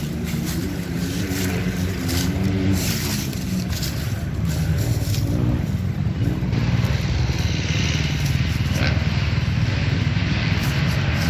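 Dirt bike engines running and revving across the track, their pitch repeatedly rising and falling.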